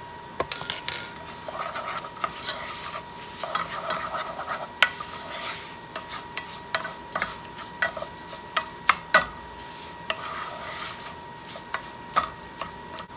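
A utensil stirring rice as it browns in melted butter in a pan, with many short scrapes and taps against the pan over a light sizzle.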